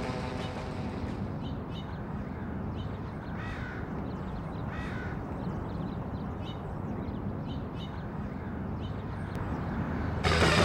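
A crow caws twice, about three and a half and five seconds in, with a few faint short chirps. Underneath is a steady outdoor background with a low rumble.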